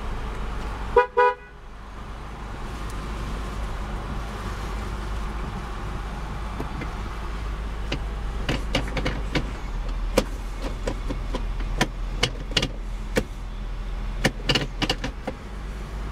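2001 Acura CL's 3.2-litre V6 idling steadily; about a second in, the car horn gives two short toots, the loudest sound here. From about eight seconds in comes a scattered run of clicks as the automatic gear selector is worked through its positions.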